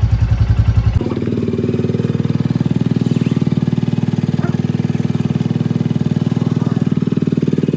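Motorcycle engine idling with an even, rapid beat, freshly started after standing unridden for months. About a second in, its sound changes abruptly.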